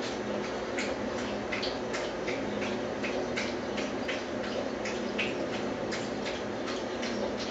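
A dog lapping water from her bowl, a steady run of wet laps at about three a second.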